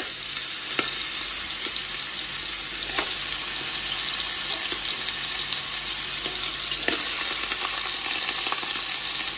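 Slices of neck meat frying in melted ghee in a nonstick pot, a steady sizzle, with a few soft clicks as more pieces are laid in.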